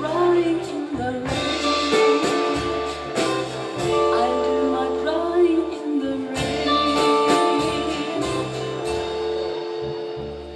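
Live band playing: a woman singing over electric guitar and drums. The music gets quieter toward the end.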